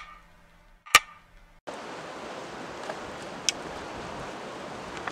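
Two sharp clicks about a second apart, each with a short ring, over near silence, then from about a second and a half in a steady hiss of outdoor background noise with a couple of faint ticks.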